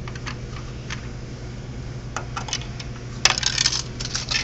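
Quarters being dropped into a snack vending machine's coin slot and clinking through the coin mechanism: scattered small clicks, then a louder cluster of metallic clinks about three seconds in and another near the end. A steady low hum runs underneath.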